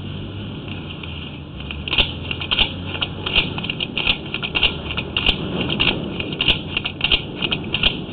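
Irregular clicking and rattling, several times a second, from a sewer inspection camera and its push cable being fed along the pipe. It starts about two seconds in, after a low steady hum.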